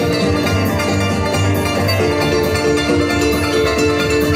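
Harp played live and amplified, plucked-string melody over a steady beat.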